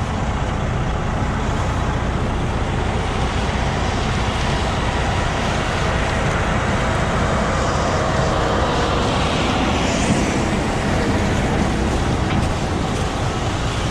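Steady, unbroken running of farm machinery engines (tractor, grain cart and combine) at corn harvest.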